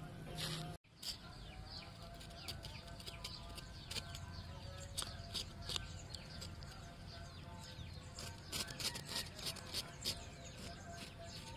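Large kitchen knife cutting and scraping boiled pork on a wooden chopping board: a run of short clicks and taps that come thicker near the end. Birds chirp in the background.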